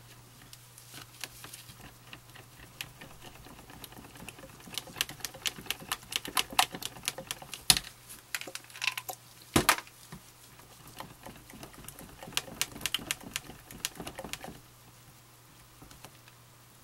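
A spatula stirring titanium dioxide into liquid in a plastic measuring cup: quick, irregular clicks and taps of the spatula against the cup's sides, with two louder knocks in the middle. The clicking stops near the end.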